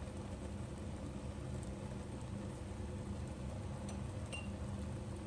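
Pot of mustard greens boiling in water: a steady bubbling rumble, with a faint tick or two about four seconds in.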